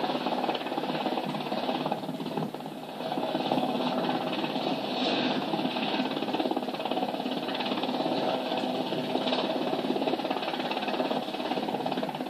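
Search-and-rescue helicopter's engines and rotors running steadily, with a fast even rotor chop, heard played back through a television's speaker.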